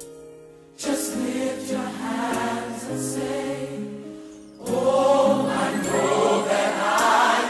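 Gospel worship song: a choir sings held chords over the accompaniment, coming in about a second in and swelling louder about two-thirds of the way through.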